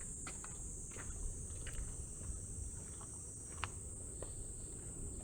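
Steady, high-pitched chorus of insects, with a few light footstep clicks and a low rumble underneath.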